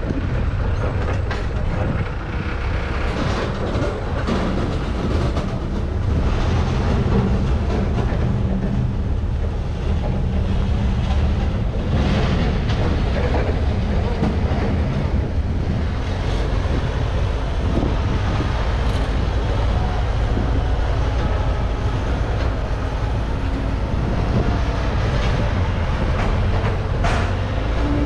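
Heavy farm machine's diesel engine running steadily close by, loud and low-pitched, with some light rattling over it.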